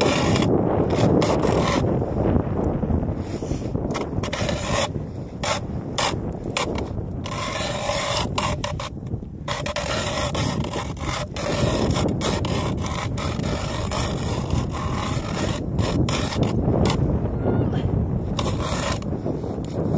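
Hand-cranked ice auger boring into lake ice, its blades scraping and shaving the ice in a continuous rasp as it turns.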